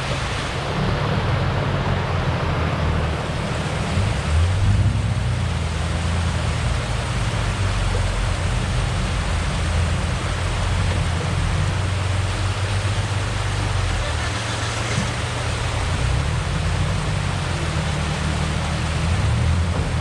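Off-road truck engine running at low revs under a steady hiss, the way a rig sounds when crawling over trail obstacles.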